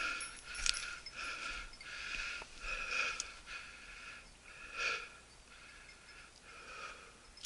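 A person breathing hard close to the microphone, short quick breaths about one every half to three-quarters of a second that grow fainter and slower after about five seconds.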